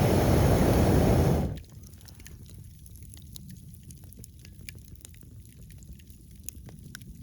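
Liquid pouring or splashing for about a second and a half, then a faint steady background with small scattered clicks.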